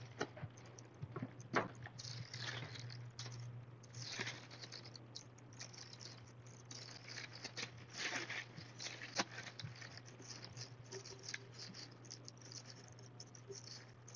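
A thin plastic bag crinkling and rustling in irregular bursts as it is handled and wrapped around a glass vase, with small taps and scrapes of hands and tape on the glass. A steady low hum runs underneath.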